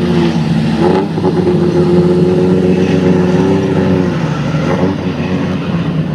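Engines of two six-cylinder Tassie Sixes speedway sedans racing side by side on a dirt oval. Their note is loud and steady, dipping and climbing again a few times as they lift off and get back on the throttle.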